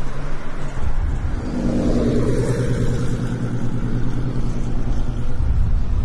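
A motor vehicle engine passing close by, its sound swelling in about a second and a half in and fading slowly, over a steady low rumble.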